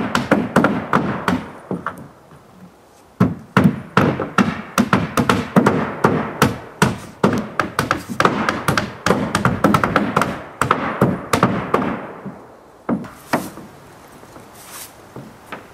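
Rapid run of hammer blows on wood, several a second, with a short pause about two seconds in; the strikes die away near the end.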